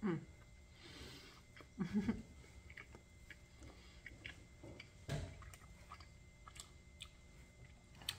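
Close-up chewing and biting of pizza with a crispy crust: small crunchy clicks and wet mouth sounds, with louder bites near the start and about two seconds in. There is a dull thump about five seconds in.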